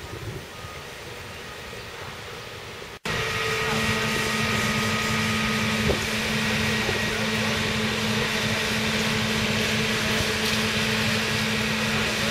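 Wind on the microphone, then, after an abrupt cut about three seconds in, a fire appliance's engine running steadily with an even low hum.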